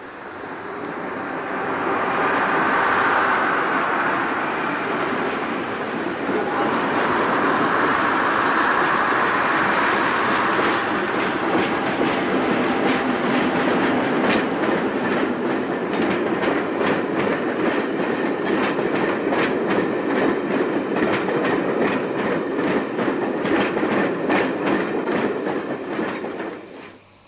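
Class 50 diesel locomotive, its English Electric 16-cylinder engine running as it hauls a passenger train past, getting louder over the first few seconds as it approaches. From about ten seconds in, a steady clickety-clack of wheels over rail joints runs under the engine, and the sound drops away near the end.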